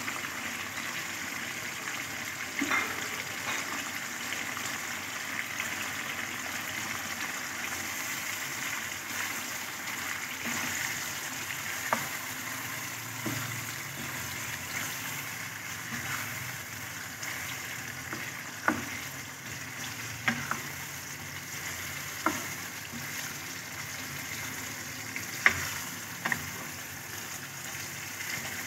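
Marinated chicken pieces, with chopped tomatoes and dry spices just added, sizzling and frying in oil in a non-stick wok as a spatula turns them. Six or so sharp knocks of the spatula against the pan stand out in the second half.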